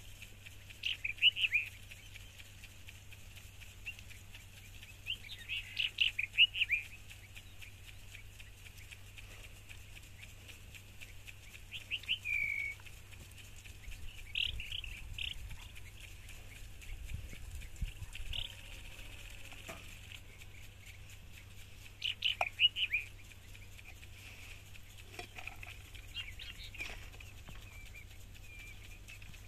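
Birds chirping in short bursts every few seconds, over a faint steady hum.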